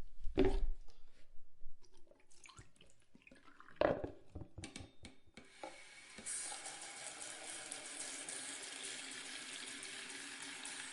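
A couple of knocks and a few clicks, then about halfway through a bathroom sink tap is opened and water runs steadily into the basin, growing stronger a moment later.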